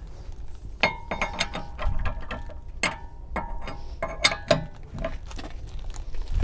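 Irregular metallic clicks and clinks with a short ring, from lug nuts being loosened and taken off a car wheel with a lug wrench.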